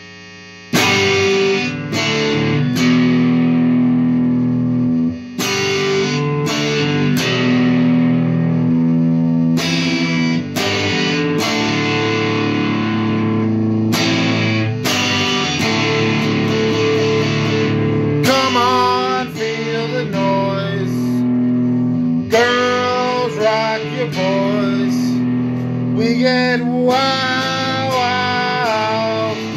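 Electric guitar, a Stratocaster-style solid body, playing a strummed rock chord riff through an amplifier, starting about a second in. Over the second half a voice sings along with the guitar.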